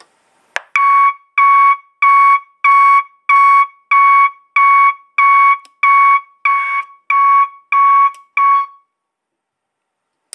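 24-volt reversing-alarm speaker sounding one of its preset warning tones: a single-pitched beep repeated about thirteen times, roughly one and a half beeps a second, stopping about nine seconds in. A click comes just before the beeps start.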